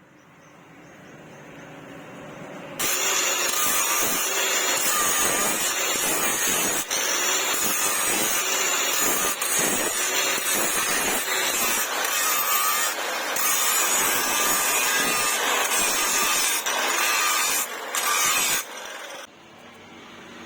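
An electric power tool runs up to speed, then grinds metal with a loud, harsh hiss about three seconds in. The grinding breaks off briefly a few times and stops about 19 seconds in.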